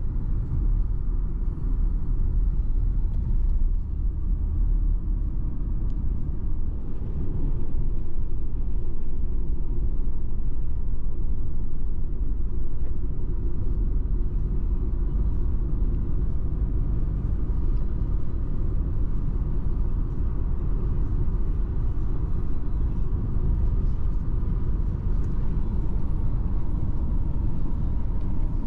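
A car driving along a road: a steady low rumble of tyres, engine and wind.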